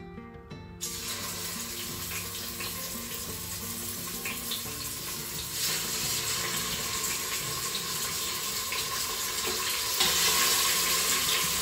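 Seasoned boneless pork loins sizzling in hot olive oil in a multicooker's inner pot as they go in to brown. The sizzle starts suddenly about a second in and gets louder around six seconds and again near the end, as each further loin is laid in.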